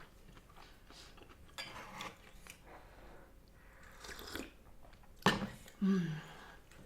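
A person chewing and biting food close to the microphone, with a few separate louder bites or clicks; the sharpest about five seconds in, followed by a short low voiced sound.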